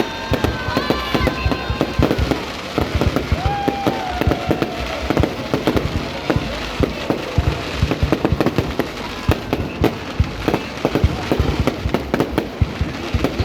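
Aerial fireworks going off in a dense, continuous barrage of bangs and crackles.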